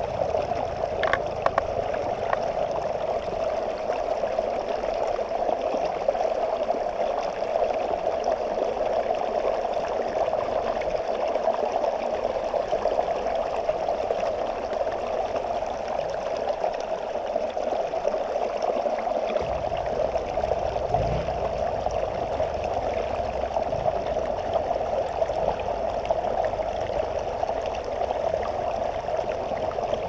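A river flowing over rocks, a steady, even rush of water. A deeper low rumble comes in about two-thirds of the way through.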